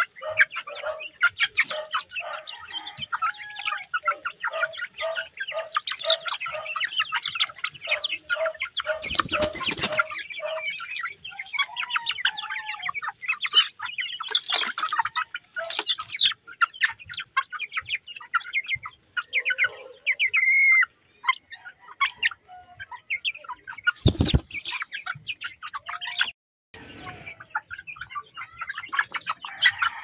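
A flock of brown chickens clucking and chirping without pause, one giving a low cluck about twice a second during the first ten seconds. Two loud rustling bursts break in, about ten seconds in and again past the twenty-second mark.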